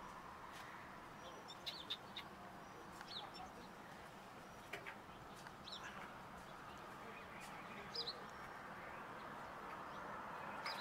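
Faint, short, high bird chirps, scattered and some in quick pairs, over a steady faint background noise.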